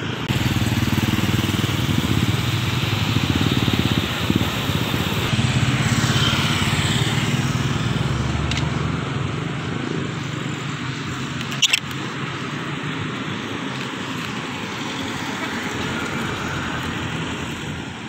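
Motorcycle engine running in street traffic, louder in the first half and then fading. There is a single short, sharp click about two-thirds of the way through.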